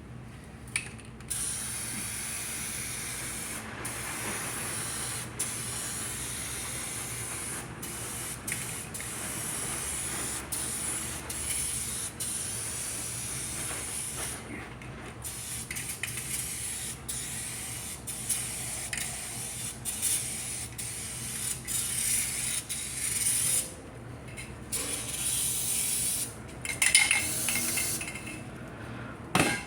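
Rust-Oleum spray paint hissing out in long passes over the truck cab's sheet metal, with short breaks between strokes.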